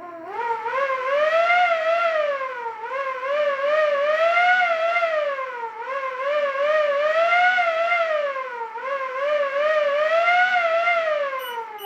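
Mini motor-driven siren run from a car alarm's output: its pitch winds up with a quick wobble and slides back down, four times at about three-second intervals, following the alarm's pattern. On the last fall near the end it keeps dropping as it winds down.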